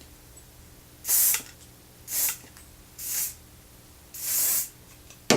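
Aerosol hairspray can sprayed in four short hissing bursts, about a second apart. A sharp click comes near the end.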